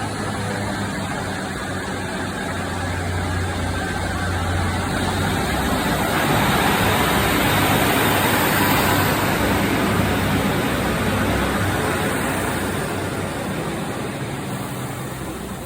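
Diesel passenger train passing, its engine hum and running noise swelling to a peak about eight seconds in and then fading away.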